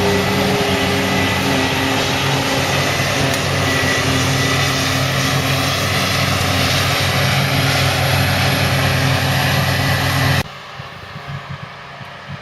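Heavy diesel farm machinery of a silage harvesting operation running steadily at high revs, with a thin high whine over the engine. It cuts off suddenly near the end, leaving a much quieter background.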